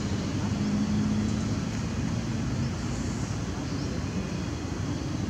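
Steady low rumble of outdoor background noise, with no distinct event.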